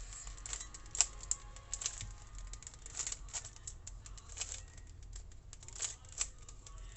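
Plastic Rubik's Cube being twisted quickly by hand: a rapid, irregular run of clicks and clacks as the layers turn, with a few sharper clicks about a second in and near the end.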